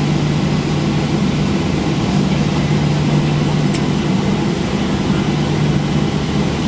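Cabin noise of a Boeing 737-800 taxiing slowly with its CFM56-7B jet engines at idle: a steady low hum, heard from inside the cabin.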